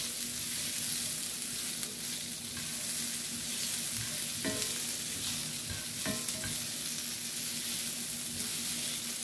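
Sliced bell peppers and onions sizzling in a cast-iron skillet while a spatula stirs them, scraping and knocking against the pan a few times.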